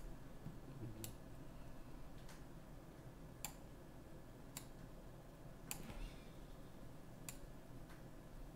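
Faint, sharp single clicks of a computer mouse and keyboard, about seven of them, roughly one a second at uneven intervals.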